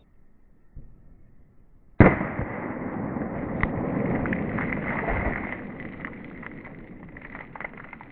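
A single shot from a Glock 21 Gen 4 firing a .45 ACP round, about two seconds in, followed by a long crackling rush that fades over several seconds.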